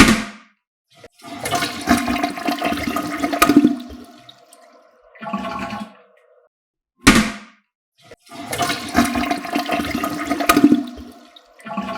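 Toilet flushing twice in a row. Each flush opens with a sharp clunk, then water rushes for about three seconds and fades, followed by a shorter burst of water about a second later.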